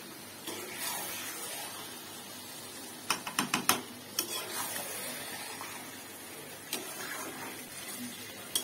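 A spatula stirring and scraping gizzards and liver in thick spice paste in a pan, with a cluster of sharp knocks of the spatula on the pan about three seconds in and one near the end. Under it runs a steady sizzle as the offal fries in the masala.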